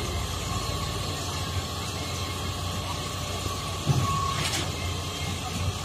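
Sany 47-metre truck-mounted concrete pump running with a steady engine hum. A single knock comes about four seconds in, followed by a short hiss.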